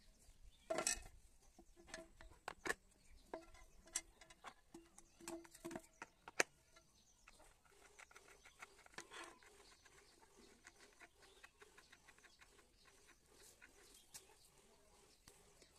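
Faint, scattered clicks and taps of small plastic and metal parts being handled: a bearing worked at a toy tractor wheel's hub and rubber-tyred RC wheels moved about and set down. A faint steady drone lies underneath.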